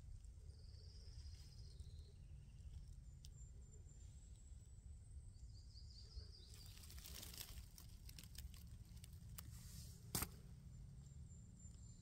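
Quiet forest ambience: a low steady rumble, faint high chirps, a brief rustle about halfway through, and a single sharp click about ten seconds in.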